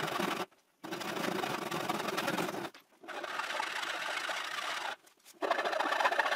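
Backsaw cutting through the corner of a wooden chair leg, then a metal file rasping over the cut edge, heard in short clips that stop abruptly between them. The last stretch of filing is the loudest and brightest.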